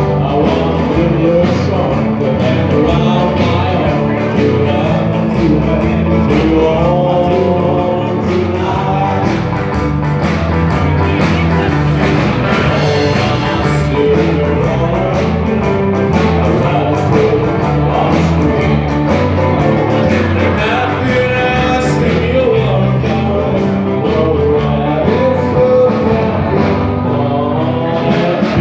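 Live rock'n'roll band playing at steady full volume: guitar, bass and drums with a singer.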